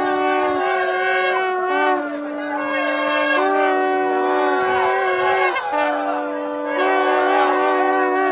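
Ritual horns blown together in long held notes at two pitches, a lower and a higher note overlapping and taking turns, each held for two to three seconds with short breaks between.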